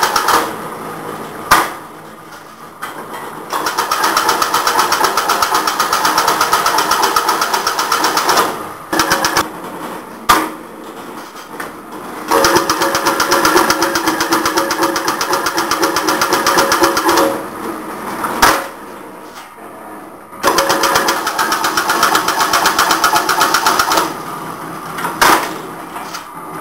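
Automatic chain-link mesh machine running in repeating cycles: stretches of fast, even rattling lasting several seconds, broken by quieter pauses, each with a single sharp clack.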